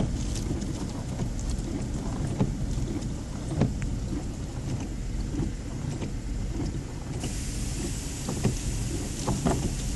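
Car windshield wipers sweeping across a lightly wetted windshield over a steady low hum, with brief faint ticks now and then. This is a test of a freshly fitted right wiper blade for the chatter noise it made before.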